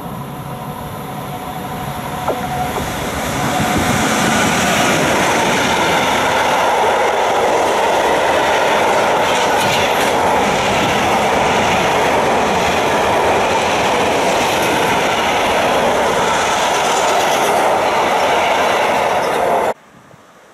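Freight train of tank wagons and sliding-wall box wagons hauled by a Railion class 145 electric locomotive passing close by at speed. The rolling noise of wheels on rail swells over the first few seconds as the train arrives, holds steady while the wagons go by, then cuts off suddenly near the end.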